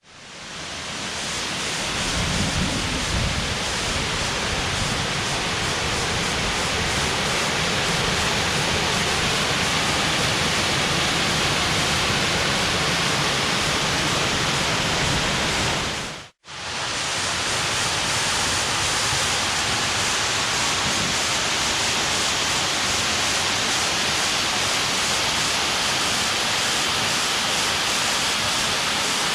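Steady rush of a waterfall's falling water, broken by a brief silent gap about sixteen seconds in where the recording cuts.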